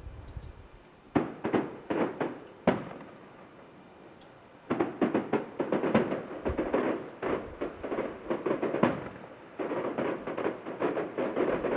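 Fireworks display heard from about a mile away: a few separate bangs in the first three seconds, a lull, then dense rapid crackling and popping from about five seconds in. A brief gap near ten seconds is followed by another dense run of pops.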